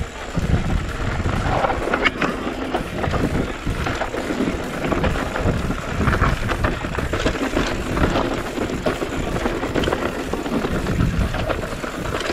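Mountain bike running down a rough downhill trail: wind buffeting the microphone over tyre noise, with the bike rattling and knocking on the bumps.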